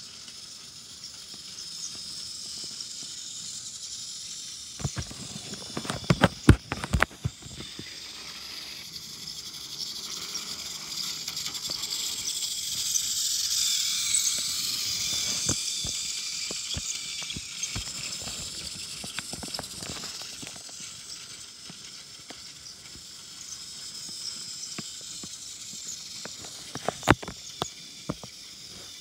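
Battery-powered toy saddle tank engine built on a motorized talking Percy, its small motor whirring as it runs along plastic toy track, louder in the middle. A cluster of sharp clicks and rattles comes about five to seven seconds in and again near the end.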